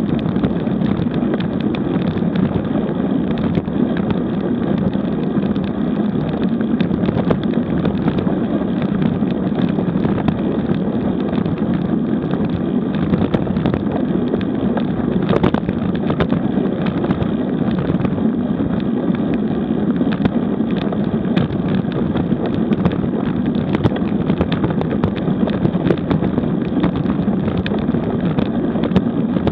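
Steady rush of wind over the camera microphone and tyre noise from a bicycle riding at about 30 km/h on cracked asphalt, with small scattered ticks from the road surface.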